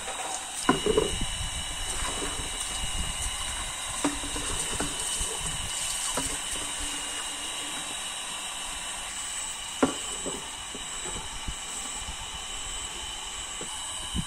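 A metal spatula or spoon knocks and scrapes now and then in a cooking pan of vegetables, over a steady hiss.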